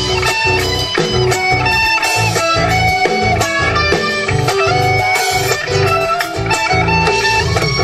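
Guitars playing an instrumental passage of an Argentine folk song between sung verses, melody over a steady, rhythmic bass.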